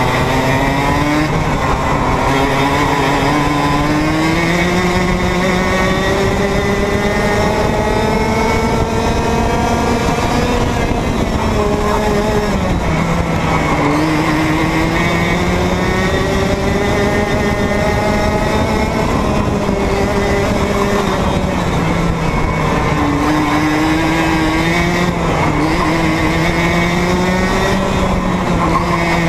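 Two-stroke racing kart engine heard from onboard the kart. Its pitch climbs slowly along the straights and drops off as the driver brakes for corners, most clearly about twelve seconds in and again a little after twenty seconds.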